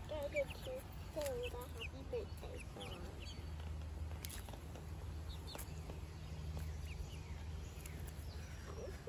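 Young hens clucking and peeping softly, busiest in the first few seconds and sparser after, over a steady low hum. A couple of sharp ticks near the middle as they peck at a leafy green held out to them.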